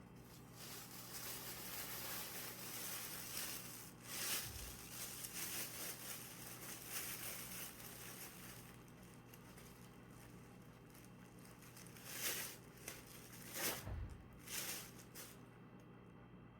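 Rustling and crinkling, with a few brief, louder scratchy bursts near the middle and towards the end.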